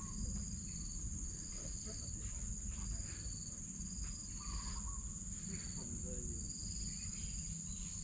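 Insects chirring steadily in a high, unbroken drone, with a second high call pulsing about once a second. A short bird call comes in about four and a half seconds in, over a low rumble.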